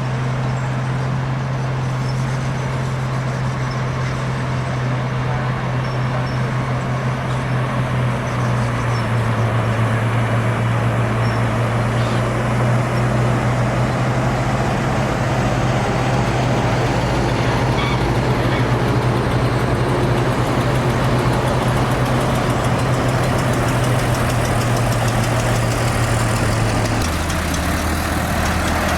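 Heavy diesel engine of construction machinery running steadily with a loud low drone. Its pitch steps down slightly about a third of the way in and drops lower near the end.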